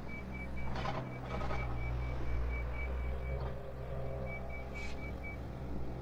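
A truck's back-up alarm beeping rapidly, about four beeps a second, with a short pause around three and a half seconds in before it beeps again, over the steady low rumble of an engine. A few brief noises cut in now and then.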